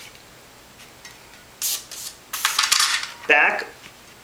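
A partially inflated bicycle inner tube and wheel being handled, rubbing and lightly clinking against the rim in two short bursts, the second about two and a half seconds in and the louder of the two.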